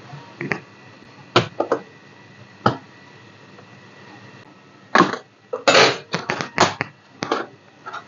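Keyboard of a Dell Vostro 15 3568 laptop being pried out of the palmrest with a plastic pry tool, its retaining clips clicking free. There are a few sharp clicks in the first three seconds, then a quick run of louder clicks and snaps from about five to seven and a half seconds in.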